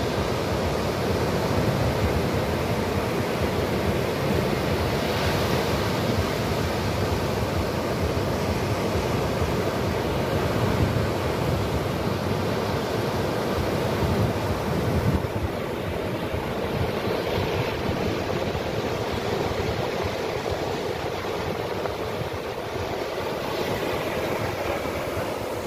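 Sea surf breaking and washing up the sand at the water's edge, a steady rush, with wind buffeting the microphone. It gets slightly quieter about fifteen seconds in.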